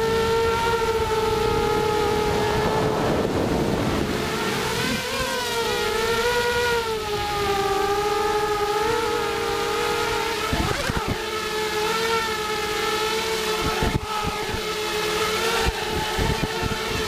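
ZMR250 FPV quadcopter's four 2300 kV brushless motors and propellers whining, the pitch rising and falling with throttle. Heard from the onboard GoPro, with wind rushing on the microphone.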